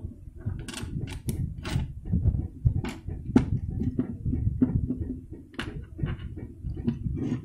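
Handling noise from a charging cable being fitted between a plastic solar camping lantern and a small feature phone: irregular clicks, knocks and rubbing, with a low rumble under them.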